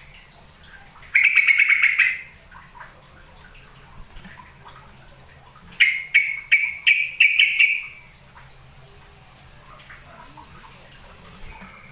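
Yellow-vented bulbul (trucukan) calling in two bursts of quick, sharp chattering notes: a rapid run about a second in, then a longer phrase of five or six distinct notes about six seconds in.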